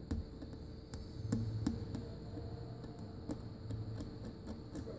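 Light, irregular clicks and taps of small repair tools against an iPhone 5S being worked on, about a dozen in five seconds, over a steady faint hum.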